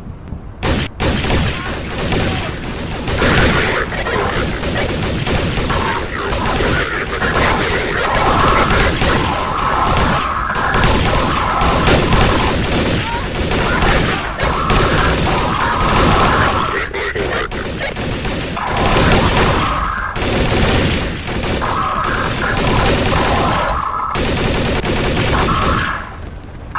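Loud, continuous barrage of gunfire and blasts from a cartoon fight, with a voice shouting over it at times.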